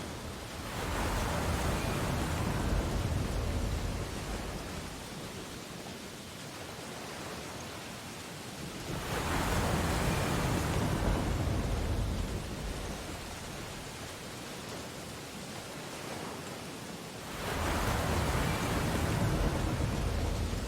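Ocean waves breaking on a beach: three swells of surf, about eight seconds apart, each rising into a rush and washing away.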